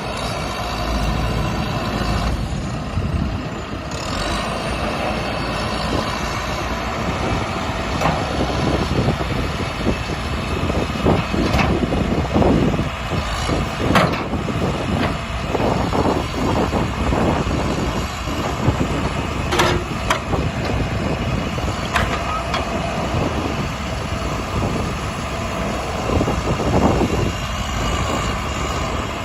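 John Deere 310J backhoe's diesel engine running steadily, with repeated short clanks and knocks through the middle stretch.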